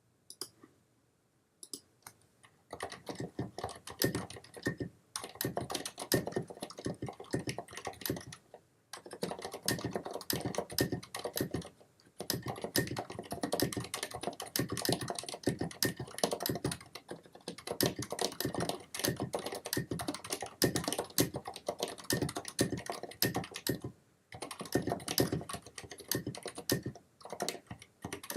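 Fast typing on a Filco Majestouch 2 TKL mechanical keyboard with Cherry MX Silent Red switches and SA-profile keycaps: a dense run of muted keystrokes, broken by short pauses. It starts about three seconds in.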